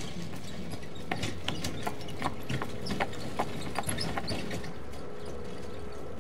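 A horse's hooves clip-clopping, a run of hoof strikes from about a second in until just past four seconds, over a steady background hum.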